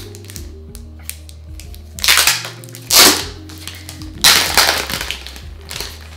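Plastic shrink-wrap crinkling and tearing as it is peeled off a boxed Blu-ray set, in three loud bursts about two, three and four and a half seconds in. Quiet background music plays underneath.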